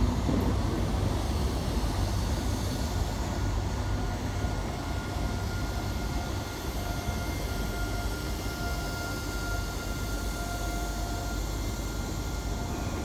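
A train running at the station: a steady low rumble with a thin, steady high tone through the middle, easing off slowly toward the end.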